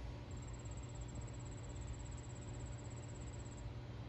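An insect trilling in a fast, even, high-pitched pulse, breaking off briefly just after the start and again near the end, over a low steady hum.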